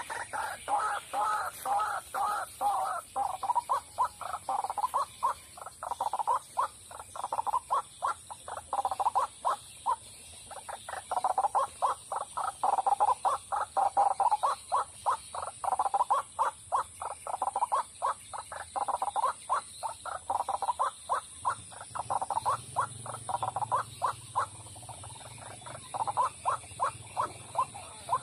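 White-breasted waterhen calling: a long run of rapidly repeated croaking 'ruak-ruak' notes, with short breaks.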